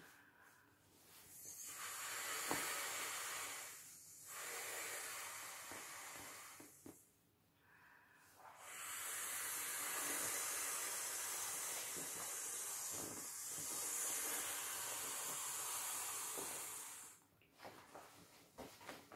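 Breath blown by mouth through the valve of an inflatable vinyl paddling pool, hissing in three long blows with short pauses for breath between them, the last about eight seconds long. Soft handling noises from the vinyl follow near the end.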